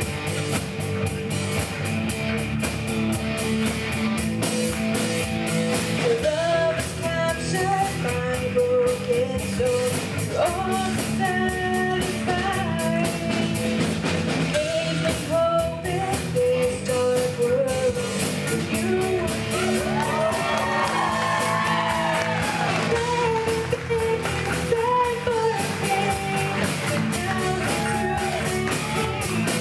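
Live church band playing an original rock-style worship song with electric guitar and drum kit; a lead vocalist comes in singing about six seconds in.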